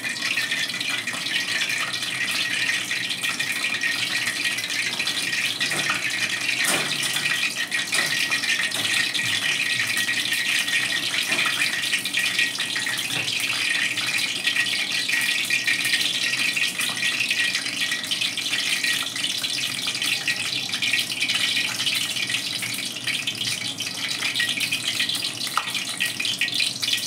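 Oil heating in an iron kadai over a lit gas burner: a steady hiss with dense fine crackling.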